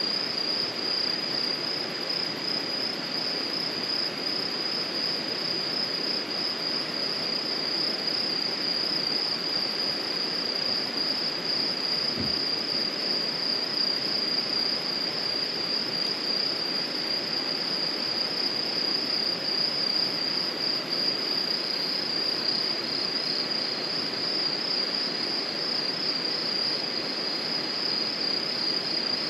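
Crickets chirring in a continuous high, finely pulsing trill, with a second slightly lower trill joining about two-thirds of the way in, over a steady background hiss. A single soft low thump is heard near the middle.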